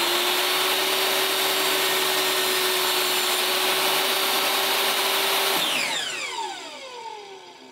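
A 10-inch corded table saw running at full speed while a board is ripped along the fence. About five and a half seconds in the motor is switched off and the whine falls in pitch as the blade spins down.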